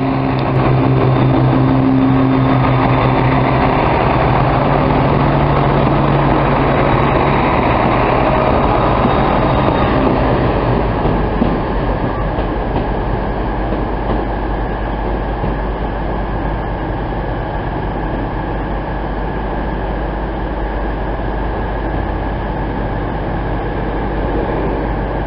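Class 170 Turbostar diesel multiple unit moving through the station: a steady diesel engine drone for the first ten seconds or so, then an even rumble of the train running on the track that slowly eases.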